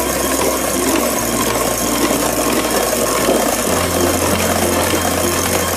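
Electric hand mixer running steadily, its beaters churning chocolate cake batter in a stainless steel bowl.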